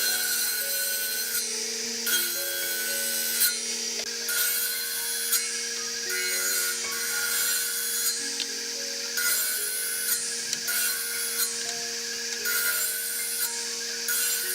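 Repeated rasping strokes of a tool working hardwood, roughly one stroke a second, each lasting about half a second to a second. Background music with held tones plays beneath.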